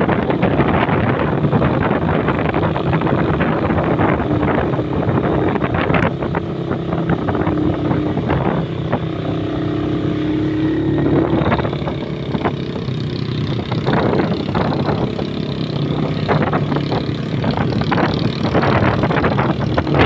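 Motorcycle engine running at riding speed, with wind buffeting the microphone.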